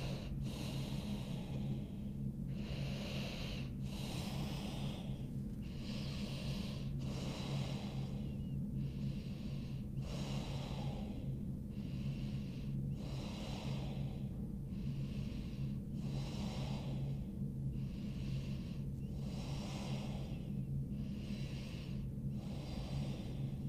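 A woman breathing deeply and audibly while holding a seated forward-bend stretch: an even rhythm of breath sounds, each about a second long with short pauses between, over a steady low hum.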